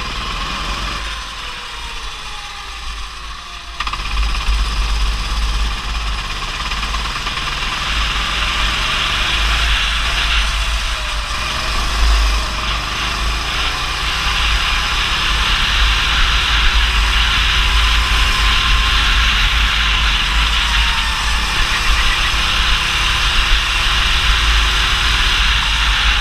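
Go-kart engine heard from the kart's onboard camera, its revs rising and falling through the corners, with wind buffeting the microphone. It gets suddenly louder about four seconds in and stays loud after that.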